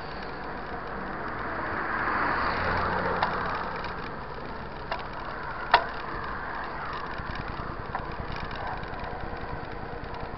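Mountain bike riding on asphalt, heard from the bike: steady wind and tyre noise that swells for a moment about two seconds in, a few sharp clicks and knocks from the bike, the loudest just before the halfway mark, and light, quick, regular ticking in the second half.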